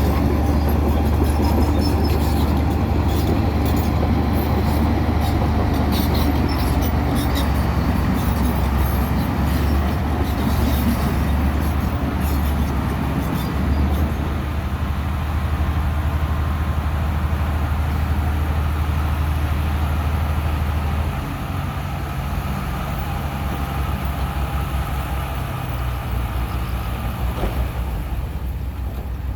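A heavy vehicle engine running steadily with a low drone, which drops in level about twenty seconds in.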